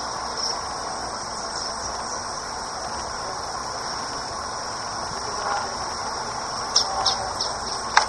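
Steady high-pitched insect chorus from grassland, with a few short high chirps near the end.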